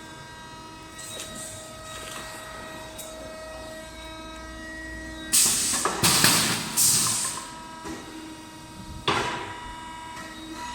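Woodworking copy lathe running with a steady machine whine. Loud noisy surges come three times in quick succession about halfway through and once more near the end, as the cutter bites into the wood.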